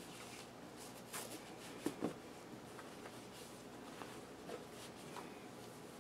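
Faint room tone with a few soft knocks and rustles, the loudest pair about two seconds in.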